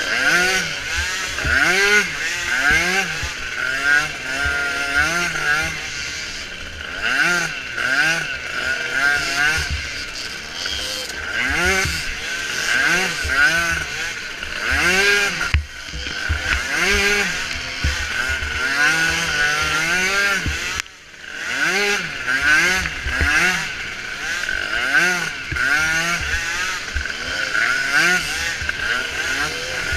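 Small micro (youth) ATV engine racing, revving up and falling off again and again as the throttle is worked, with a brief lull about two-thirds of the way through.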